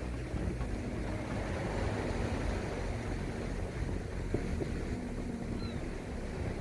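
Wind buffeting the microphone in a steady, rumbling gust, with the sea's waves washing behind it.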